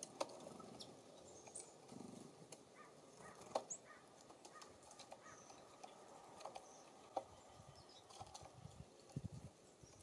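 Small songbirds at a feeder: a few short, faint high chips and scattered light taps and clicks, with a cluster of soft low thumps near the end.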